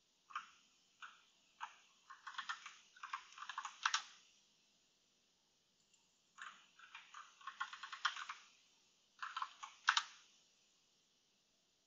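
Computer keyboard keystrokes in three bursts of quick typing with short pauses between them.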